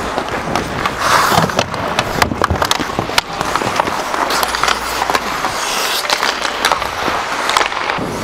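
Ice skate blades carving and scraping across the ice, with bursts of hissing scrape and many sharp clicks and knocks from hockey sticks and contact in play.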